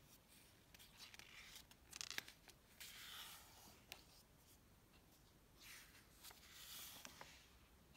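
Faint rustle and swish of a picture book's paper pages being turned by hand, with a few light paper clicks. There are three soft swishes, and the fullest comes about three seconds in.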